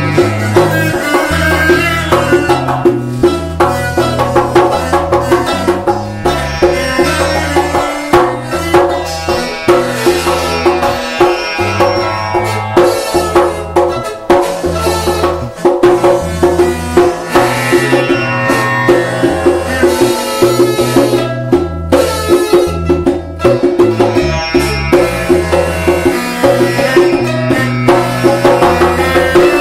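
Instrumental music for domra, arghul, tamboura and hand percussion. A fast plucked melody runs over a held drone, with hand drums keeping a regular beat.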